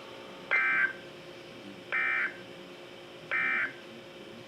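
Emergency Alert System end-of-message data signal on a NOAA Weather Radio broadcast: three short buzzing bursts of digital data tones, about a second and a half apart, marking the end of the alert. A faint steady hum runs underneath.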